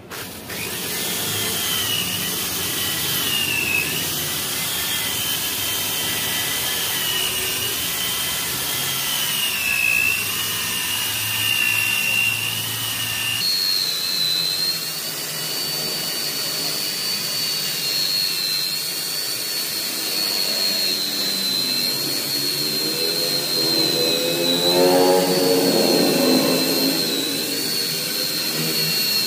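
Electric rotary car polisher running against a car door's painted panel, buffing dull, faded paint: a steady motor whine whose pitch wavers as the pad is worked, stepping higher about halfway through. A lower hum swells briefly near the end.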